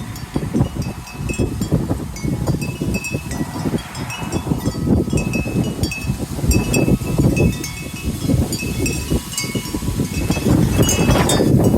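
Wind chimes ringing in irregular clusters of clear, high metallic notes as the wind pushes them. Under them runs a louder, gusting low rumble of wind.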